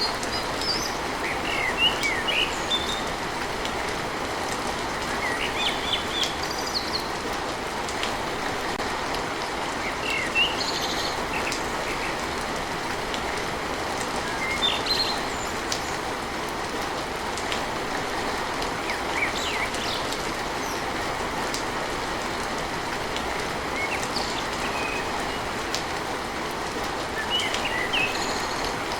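Steady rain hiss with no breaks, and short bird chirps scattered through it every few seconds.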